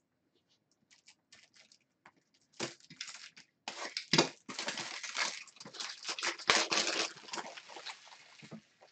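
Trading cards and plastic card sleeves or holders being handled: scattered clicks, then a run of rustling and crinkling for a few seconds, loudest around the middle.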